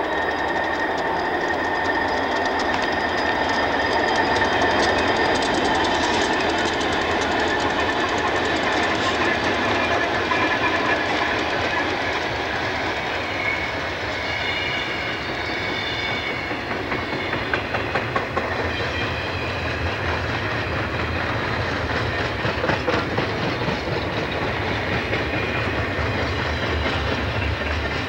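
Diesel freight locomotives and their train rolling past, wheels clicking over rail joints. The low engine rumble grows stronger in the second half, and a steady high tone sounds in the first part.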